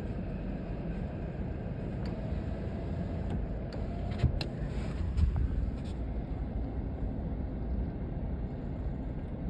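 Steady low rumble of a passing train, with a few sharp clicks about four and five seconds in.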